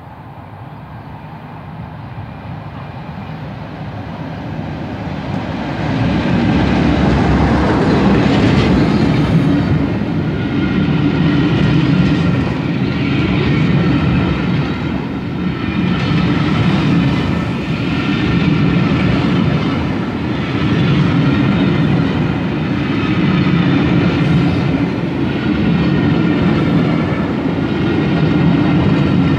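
A passenger train passing close by: a Class 47 diesel locomotive approaching and growing louder over the first six seconds, then coaches rolling past. Their wheels clatter over the rail joints in a rhythm that swells about every two seconds.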